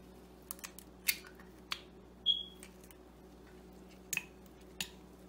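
An egg being cracked against a glass bowl and broken open: a handful of sharp taps and clicks, one about two seconds in with a short glassy ring. Near the end come a couple more clinks as the shell goes into a small glass bowl.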